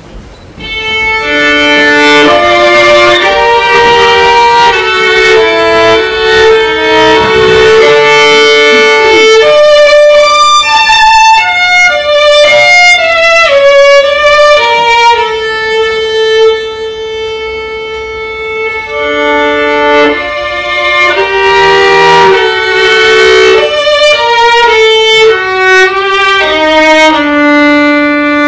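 Solo violin playing a melody of mostly long held notes, starting about a second in and dropping to a softer passage for a few seconds in the middle.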